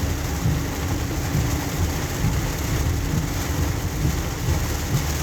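Heavy rain and tyre noise on a wet road, heard inside a moving car's cabin: a steady wash of noise over a low road rumble.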